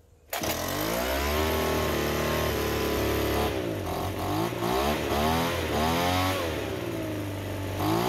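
A Craftsman two-stroke leaf blower engine catches about a third of a second in and runs at a steady fast idle on choke. From about halfway its speed repeatedly sags and picks up again. It stumbles and nearly cuts out as it is switched to run, a stumble the owner puts down to it not getting the fuel it needs, and the throttle keeps it running.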